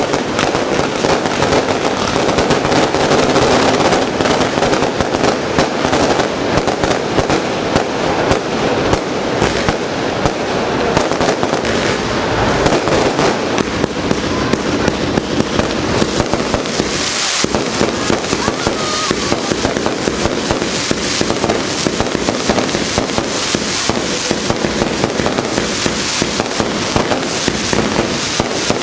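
Aerial fireworks display: a dense, unbroken barrage of bangs and crackling from shells bursting overhead.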